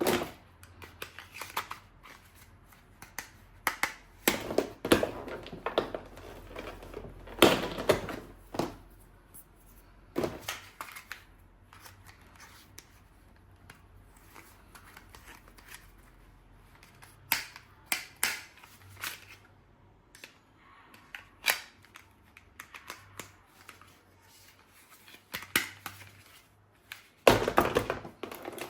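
Handling noise from a toy gun and its packaging: irregular clicks, knocks and crinkling rustles, in bunches with quiet gaps. The loudest knocks come a little past seven seconds in and again near the end.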